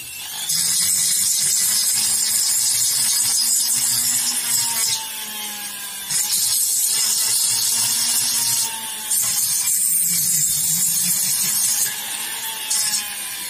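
Flexible-shaft rotary grinder with a burr bit cutting into the aluminium crankshaft bearing seat of a Yamaha F1ZR crankcase, a high grinding hiss over a steady motor hum. The hiss eases off briefly three times as the bit is lifted and set back in the bore. The seat is being opened out roughly so the crank bearing will fit.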